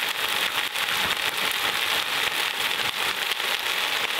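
Marinated soy pieces frying in hot oil in a frying pan: a steady sizzle with dense fine crackling.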